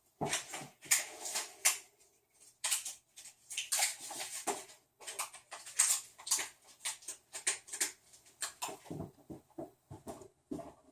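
Irregular handling noises: quick runs of rustles, clicks and light knocks from small objects being moved about.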